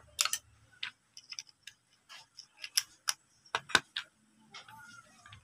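Small metal parts clicking and clinking as they are handled and fitted around the spindle head of a Makita angle grinder. A run of irregular sharp clicks, the loudest in the middle.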